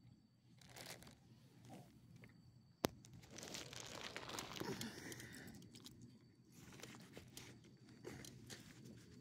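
Rustling and crinkling, with one sharp click about three seconds in and a denser stretch of rustling just after it.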